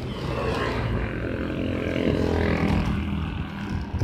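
Wind rushing over the microphone of a moving bicycle, with the steady engine drone of a motor vehicle going by.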